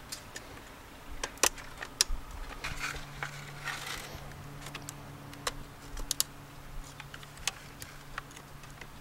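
Hand tools clicking and clinking at irregular intervals while spark plugs and ignition coils are worked on, with a short rustle about three seconds in and a faint steady hum underneath.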